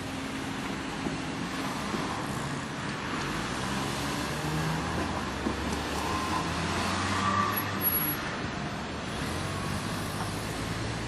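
Road traffic: cars running past with engine hum and tyre noise, swelling a little towards the middle.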